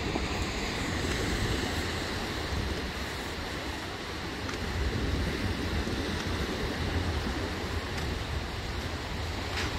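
Surf washing onto a beach in slow swells, with wind rumbling on the microphone.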